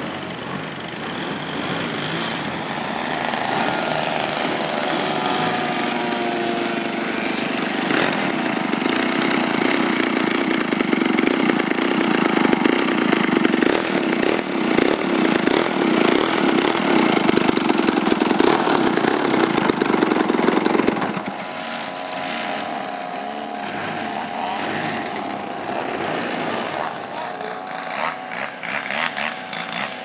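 Engines of several large radio-controlled aerobatic planes running at high throttle as they hang in a prop hover: a buzzing drone of several pitches at once. It swells over the first half and drops back sharply about two-thirds of the way in.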